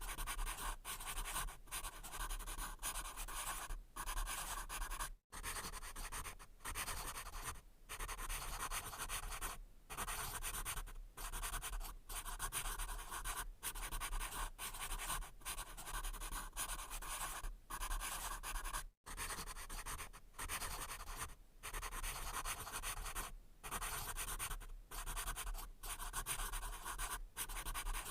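Pencil writing on paper: a continuous scratchy rasp of graphite strokes, broken by frequent short pauses as the pencil lifts between strokes and words.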